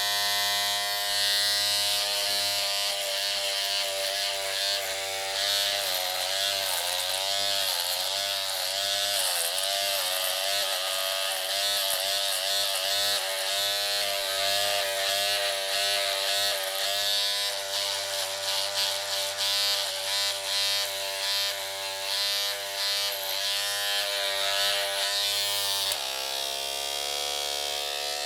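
Electric razor buzzing while shaving stubble. Its pitch wavers up and down as the head is pressed and moved over the skin. Near the end the buzz shifts abruptly to a steadier tone.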